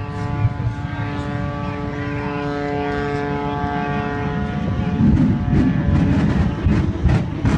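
Propeller airplane engine droning at a steady pitch. About five seconds in, the steady drone gives way to a louder, rough low rumble with crackling.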